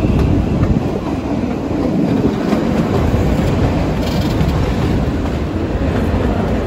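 Kalka–Shimla narrow-gauge toy train running, heard from an open coach doorway: a steady rumble and rattle of the coaches and wheels on the rails.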